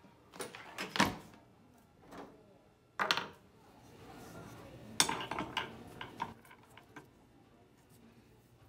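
Metal clanks and rattling clicks from handling a small cast-iron bench vise, in three bursts about a second, three seconds and five seconds in; the last burst is a string of quick clicks.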